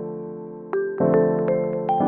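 Background music: a slow, soft piano piece, with a sustained chord fading, a single note, then a new chord struck about a second in.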